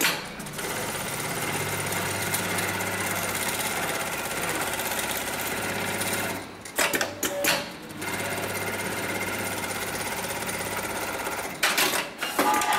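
HighTex MLK300-2516 programmable electronic pattern sewing machine stitching a tag at speed. It runs in two steady stretches, with a short break of sharp clicks about halfway through and more clicking and knocking near the end.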